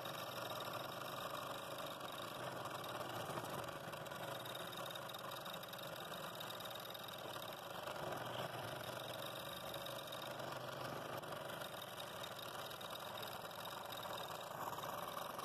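Scroll saw running steadily, its blade cutting through a wood blank.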